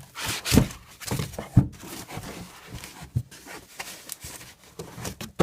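Cardboard boxes and packaging being handled, with irregular knocks and rustling, the loudest knocks about half a second and a second and a half in.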